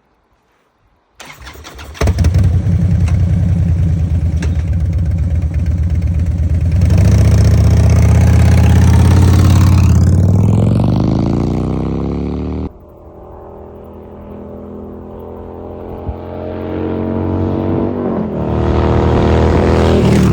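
Harley-Davidson Dyna's air-cooled V-twin engine starting about a second in and running loud, then pulling harder with its pitch rising. About two-thirds of the way through the sound drops off suddenly as the throttle closes, then it climbs again in pitch and loudness as the bike accelerates.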